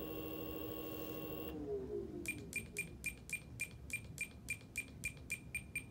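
E-flite Power 46 brushless electric motor of a model plane turning its propeller at low throttle: a steady whine that winds down to a stop about a second and a half in. It is followed by a regular series of short, high pips, about five a second.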